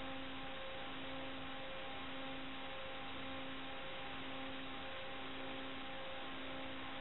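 Steady radio-channel hiss, band-limited like a receiver feed, with a low buzzing tone pulsing on and off about once a second.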